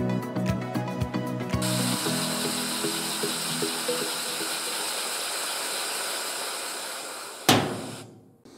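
Background music that stops about a second and a half in, followed by a wooden model steam engine running on compressed air: a steady hiss of air with a light, quick clatter from the wooden mechanism. A single sharp knock near the end, after which the sound dies away.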